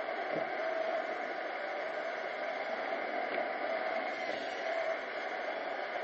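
iRobot Roomba 770 robot vacuum running: a steady, even whir of its vacuum motor and brushes.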